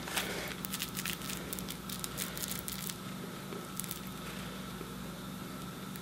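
Faint handling sounds, light rustling and small clicks, as a tag is pulled off a cat's toy mouse. They thin out after about three seconds, leaving a low steady room hum.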